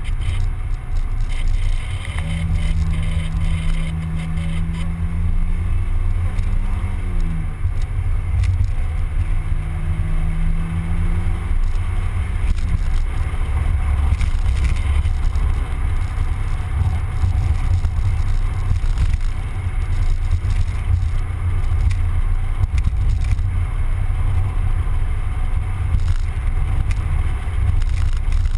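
Mazda Miata's four-cylinder engine driving on the road, under a heavy, steady rumble of wind and road noise. The engine note holds steady from about two seconds in, climbs and drops off around seven seconds, comes back briefly, then fades under the rumble.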